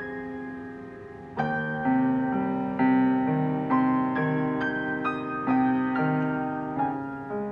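Grand piano playing a slow, gentle piece. A held chord fades for about the first second and a half, then a new chord is struck and a melody moves on in notes roughly half a second apart over held lower notes.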